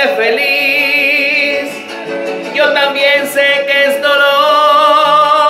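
A man singing a Spanish romantic ballad into a handheld microphone over instrumental backing, holding long notes with vibrato.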